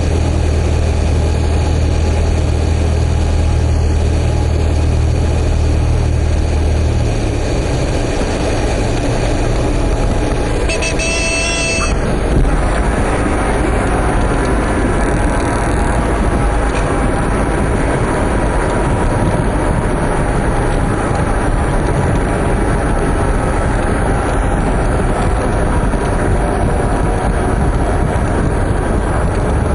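Cessna 172P's four-cylinder Lycoming engine and propeller droning steadily, its low note dropping away about a quarter of the way in as power comes off. About a third of the way through, a brief high-pitched horn sounds for a second or so, the stall warning horn as the plane slows in the flare. Then a steady rough rush of engine and wind noise follows.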